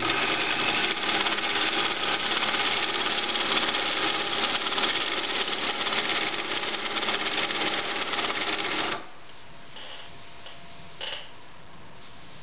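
Pfaff 130-6 sewing machine with its Automatic 50010 cam-stack embroidery attachment sewing a decorative stitch at speed: a fast, steady clatter of needle and mechanism that stops abruptly about nine seconds in. A light click follows a couple of seconds later.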